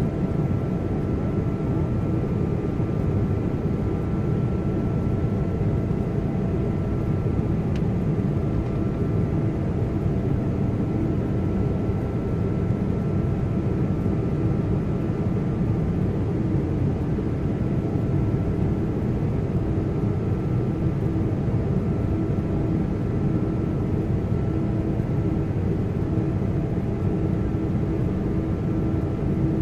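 Steady cabin noise of a jet airliner in flight: an even rumble of engines and airflow, with a faint steady hum and a thin higher whine running through it.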